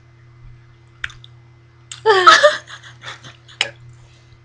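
A person's short, loud vocal outburst about two seconds in, with a couple of sharp clicks before and after it.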